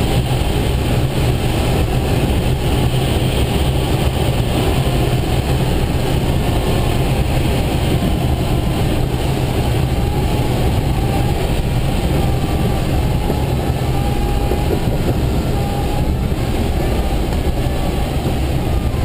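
Steady, loud rumbling rush of airflow in a glider's cockpit during a low approach to an emergency field landing.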